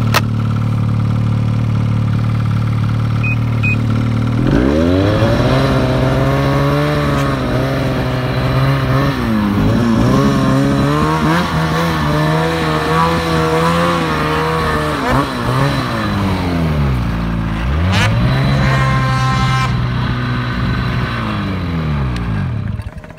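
Ski-Doo Summit snowmobile's two-stroke engine heard from the rider's seat: running steadily for about four seconds, then revving up and held under throttle with the pitch wavering as it works through snow. It drops off briefly past the middle, revs up again, and cuts back sharply at the very end.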